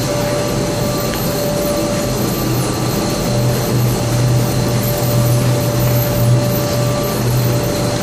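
Aluminium-chip conveying and drying machinery running steadily: a constant low hum with a thin steady whine above it over a noisy mechanical rumble.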